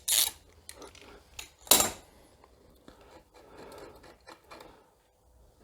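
Ratchet wrench undoing a crash bar bolt: a short burst of ratcheting clicks at the start and a louder sharp burst just under two seconds in, then faint small metal clicks of tool handling.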